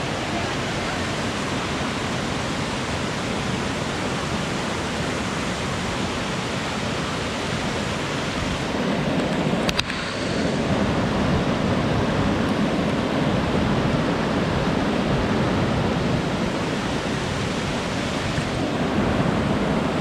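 Steady rushing of water from a waterfall cascade pouring into a rocky river pool. About halfway there is a brief click, after which the rush is louder and deeper.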